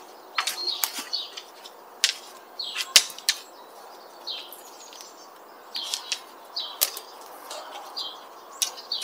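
Dry twigs and branches snapping and cracking at irregular intervals, with short rustles of brush in between, as thin wood is cut and cleared by hand.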